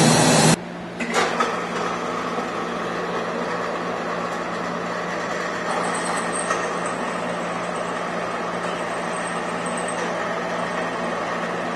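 Drill press running steadily, its bit drilling out a welded-in stainless steel plug through a guide hole in a stainless steel tube, with a knock about a second in.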